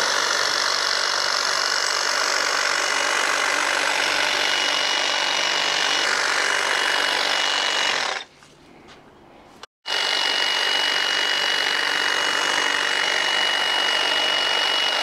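EGO 56-volt cordless hedge trimmer running steadily, its reciprocating blades cutting through a leafy hedge. It stops abruptly about 8 seconds in. It starts again a moment later with a steady high-pitched whine over the cutting noise.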